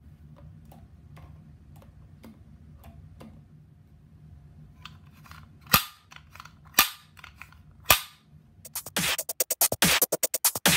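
Three loud, sharp clacks about a second apart, the snap of Simplex fire-alarm pull station handles being pulled down, over a faint low hum and light ticking. Near the end an electronic music track with a fast, driving beat starts.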